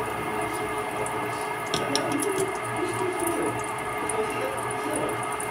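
Oil sizzling and crackling in a frying pan as breaded banana-peel strips fry, over a steady hum. There are a couple of light clicks about two seconds in.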